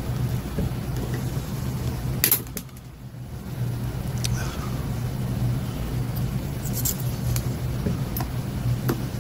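A few light clicks and taps of a soldering iron tip and pliers against a solder lug while desoldering a wire, the sharpest a little over two seconds in, over a steady low hum.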